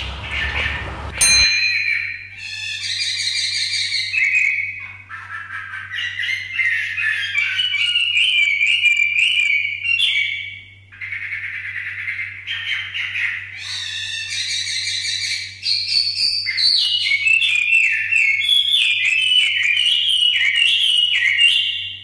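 Chinese hwamei (wambi) in full song: a loud, varied run of whistled phrases and rapid repeated notes, with short breaks about five and eleven seconds in.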